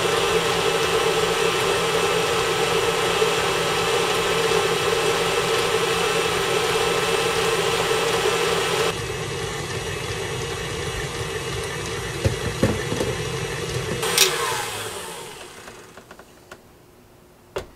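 KitchenAid tilt-head stand mixer running steadily as its beater breaks up crystallized honey; it gets somewhat quieter about nine seconds in, then is switched off about fourteen seconds in and winds down. A short click near the end.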